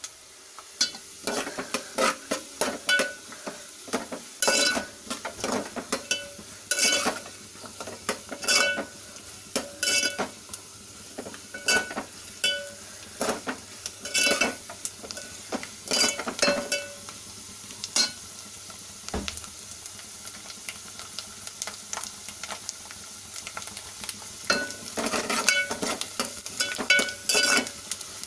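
Metal spatula stirring dry fruits frying in a pan, clinking against the pan every second or two, with a light sizzle underneath.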